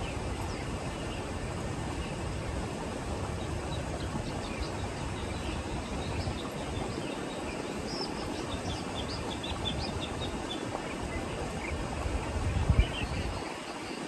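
Steady open-air background noise with a few faint, short bird chirps scattered through the middle. A brief low rumble near the end is the loudest moment.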